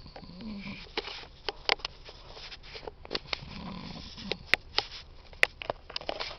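A sleeping man snoring: two drawn-out snoring breaths about three seconds apart, with a series of sharp clicks in between, the two loudest near the end.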